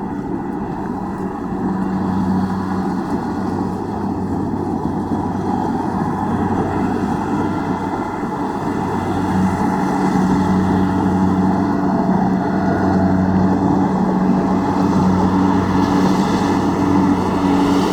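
Combine harvester's diesel engine and threshing machinery running steadily: a droning hum over a rushing mechanical noise, getting a little louder about halfway through.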